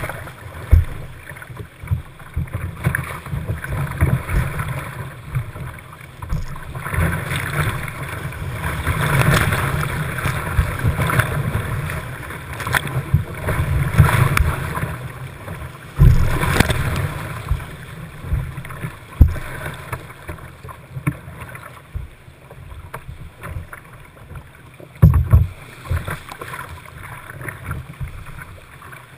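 Whitewater rushing around a kayak running rapids, with repeated sudden splashes as waves break over the deck and onto the deck-mounted camera. The loudest splashes come about 16 and 25 seconds in.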